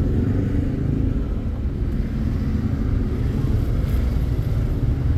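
Toyota Wigo's three-cylinder engine idling with a steady low rumble while it misfires: the scanner reports a fault in the injector number 3 circuit (code P0203).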